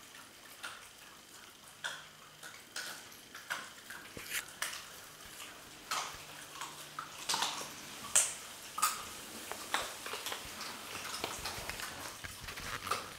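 Flat-coated retriever puppies chewing and crunching chicken wings and scuffling about: a run of irregular sharp clicks and cracks, the loudest about eight seconds in.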